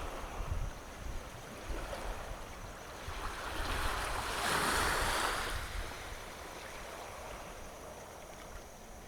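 Sea waves washing onto a sandy beach, one wash swelling up and fading away over about three seconds midway. Low rumbling wind gusts on the microphone near the start.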